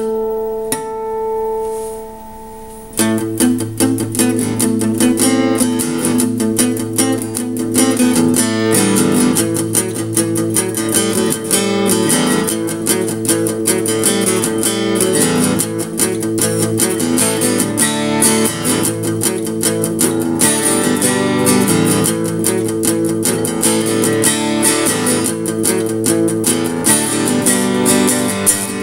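Acoustic-electric guitar: a single note rings out and fades, then about three seconds in a steady, driving strum of rock-and-roll chords begins and carries on.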